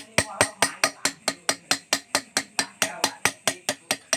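Steel hand chisel cutting fine engraved lines into the polished aluminium of a motorcycle engine block: a steady run of sharp metallic clicks, about five a second.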